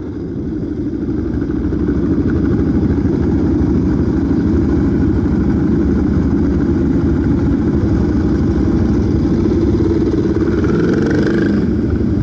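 Motorcycle engine running steadily at low revs, fading in over the first two seconds, with a brief rising note near the end.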